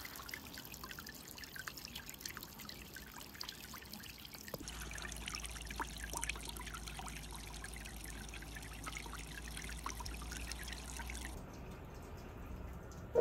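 Small garden fountain jet spraying up and splashing back into a water-filled bowl: a steady, faint trickling and splashing of water.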